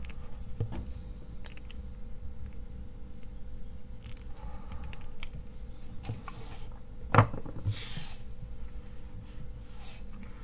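Flush side cutters snipping component leads on a circuit board, a few small clicks in the first second or two, then handling of the board with rustling and one sharp knock about seven seconds in.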